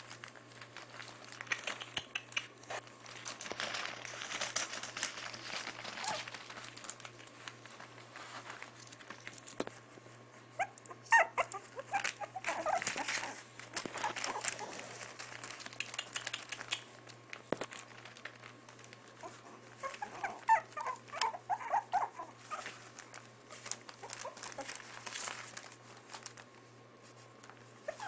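Six-week-old Maltipoo puppies playing, giving short high yips and whines in a few bursts, over the rustle and crinkle of the newspaper lining the pen.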